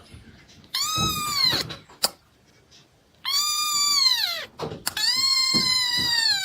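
A cat meowing: three long, drawn-out calls of about a second each, each dropping in pitch at its end.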